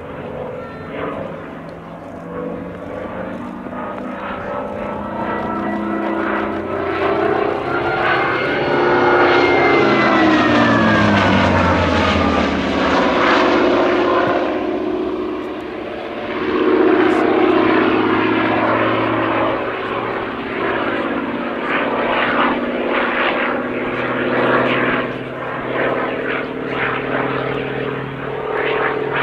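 Hawker Fury ISS's Bristol Centaurus 18-cylinder sleeve-valve radial engine and propeller during a display flypast. The sound grows louder to a peak about a third of the way in, where the engine note drops in pitch as the aircraft passes, then swells again and goes on rising and falling as it manoeuvres.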